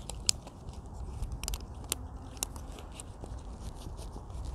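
Steel mitten gauntlet's articulated plates clicking and clinking as it is handled and flexed, a few sharp clicks in the first two and a half seconds, then quieter.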